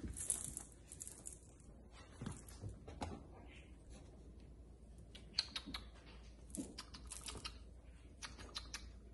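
Bengal kittens wrestling on a sisal cat scratcher and a hardwood floor: scattered light clicks and scratches of claws and paws, coming in small quick clusters.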